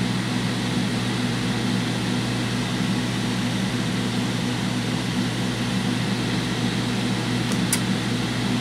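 Cooling fans of a homebuilt six-tube 3-500Z linear amplifier running steadily: an even rush of air over a low hum. There is one faint tick near the end.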